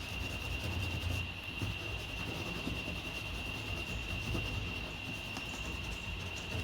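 Pencil rubbed back and forth over brown paper laid on a car's sheet-metal parcel shelf, taking a rubbing of the pressed shape for a paper template. A steady high-pitched whine and a low hum run underneath.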